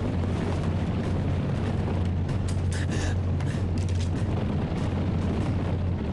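Deep, continuous rumble of a stampeding buffalo herd's hooves, steady throughout, with a brief higher hiss about three seconds in.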